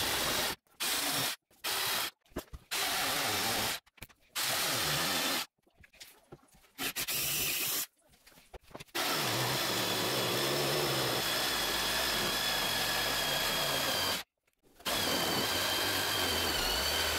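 Cheap corded jigsaw cutting a chipboard laminate worktop. It comes in several short bursts with sudden stops, then runs steadily with a high motor whine, broken once by a short pause.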